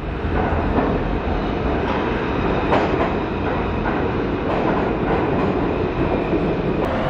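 New York City subway train running into the station along the platform: a steady, loud rumble of steel wheels on the track with irregular clacks over the rail joints.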